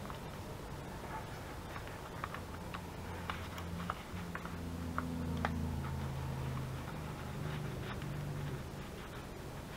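Paper being handled and pressed onto a journal page: faint rustles and small scattered ticks. Under them a low hum swells up about three seconds in and fades again near the end.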